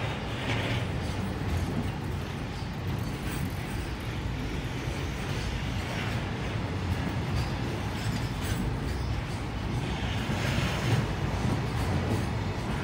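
Container flatcars of a departing freight train rolling past close by: a steady low rumble of steel wheels on the rails with a wide hiss, swelling into louder, higher hiss about half a second in and again around ten seconds in.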